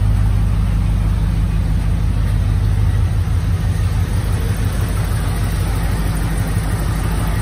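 1986 Ford F-150's engine idling steadily, running again after sitting unused for fifteen years.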